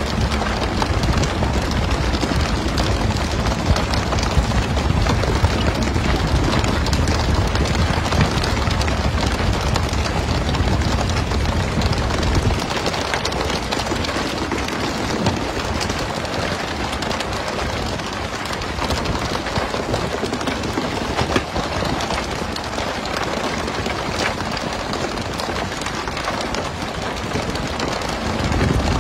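Steady rain-like hiss of water spray and splashing on a pole-and-line tuna boat's deck, over a low rumble that drops away about halfway through.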